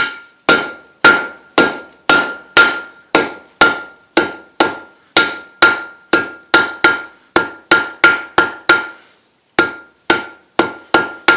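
Blacksmith's hand hammer striking hot 5/16-inch mild steel round stock on an anvil, drawing out a point. Steady blows about two a second, some doubled, each with a bright ring from the anvil, with a short pause about nine seconds in.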